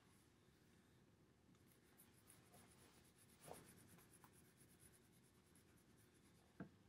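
Faint scratching and squeaking of a permanent marker tip drawn across a flooring plank in many short strokes, with a soft knock about halfway through and a click near the end.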